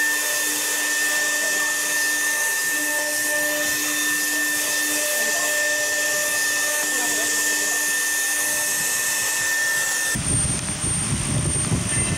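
3-axis CNC router spindle running at high speed while engraving an aluminium plate: a steady high whine over a hiss. About ten seconds in it cuts off suddenly and gives way to a low rumble with a thin high tone.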